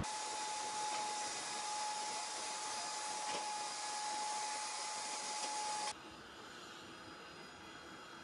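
Steady rushing hiss with a constant whine from running turbine machinery. About six seconds in it cuts off abruptly and gives way to a quieter, even hiss.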